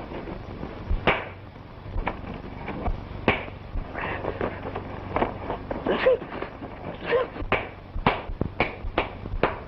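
Fistfight sound effects: a string of sharp punch and scuffle impacts, coming faster in the second half.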